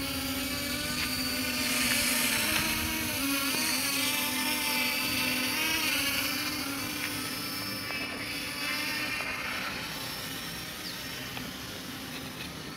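KF102 quadcopter's motors and propellers buzzing in flight: a steady hum whose pitch wavers up and down as the drone changes speed. It grows louder a couple of seconds in and fades gradually towards the end.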